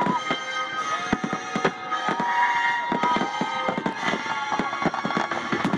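Fireworks finale: aerial shells bursting in rapid succession, a dense string of sharp bangs several times a second, with long held tones sounding over them.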